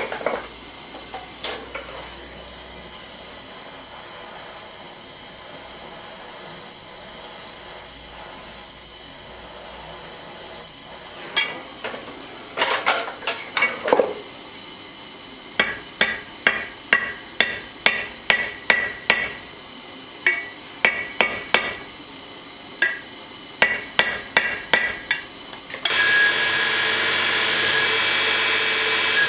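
A hammer striking, with a short ringing note on each blow. There are a few strikes near the start, a cluster about eleven seconds in, then a long run of quick, even blows. Near the end a power tool starts up and runs steadily with a high whine.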